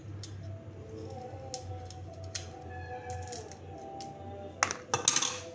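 Small knife clicking and scraping against garlic cloves as their papery skins are peeled off, with a louder cluster of clicks and rustling near the end, over steady background music.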